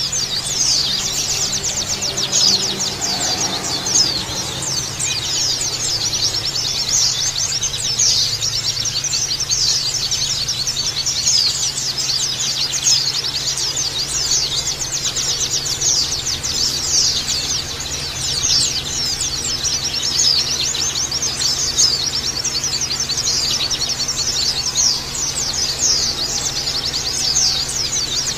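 A dense chorus of many white-eyes (pleci) chirping together: rapid, high, overlapping twittering that never pauses.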